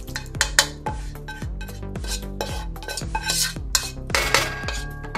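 A cooking spoon scraping and knocking against a pot as thick beef masala gravy is spooned in over a layer of rice, in a run of quick clicks and scrapes.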